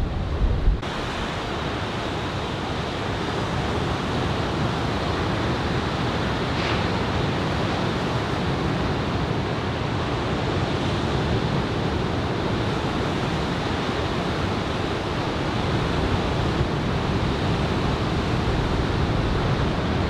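Ocean surf breaking and washing in as a steady, even wash of noise. A low wind rumble on the microphone drops away about a second in.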